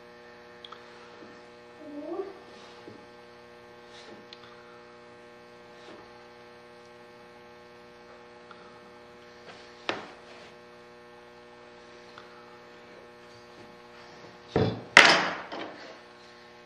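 Steady electrical mains hum, with a few faint knocks and two loud, short noisy bursts near the end.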